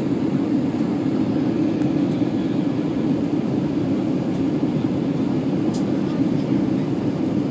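Steady cabin noise inside an Airbus A320 airliner descending to land: engine and airflow sound heard through the fuselage beside the wing, an even low rumble with no changes.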